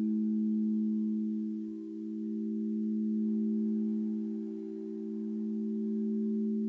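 Singing bowl ringing steadily: a low sustained tone with a couple of higher overtones, swelling and fading about every two to three seconds.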